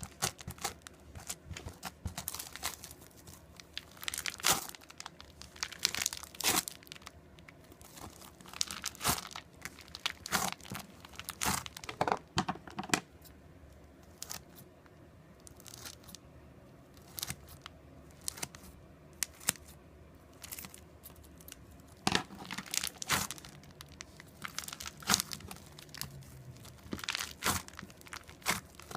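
Crunchy slime being squeezed and pressed by hand, giving irregular sharp crackles and crunches. The crackling thins out for several seconds in the middle, then picks up again.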